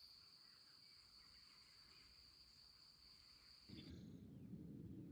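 Near silence with a faint, steady, high-pitched insect trill that stops about four seconds in, when a low rumble comes up.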